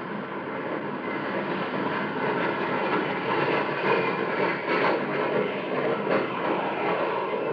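Radio sound effect of a formation of jet airplanes flying over, a steady noisy roar that grows a little louder in the middle.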